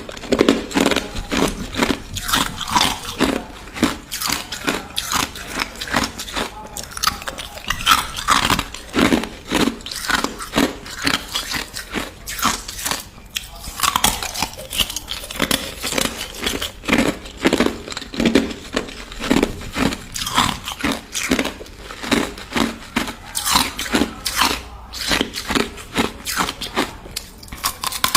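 Crushed ice being bitten and chewed close to the microphone: a rapid, continuous run of crisp crunches, about two to three a second.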